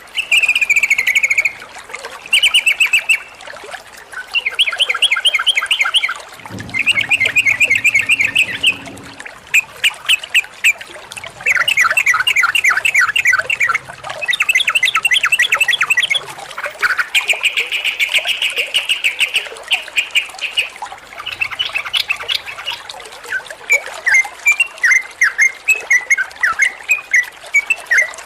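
Yellow-vented bulbul (trucukan) singing loudly, run after run of rapid repeated chattering notes, each run a second or two long, loosening into scattered chirps near the end.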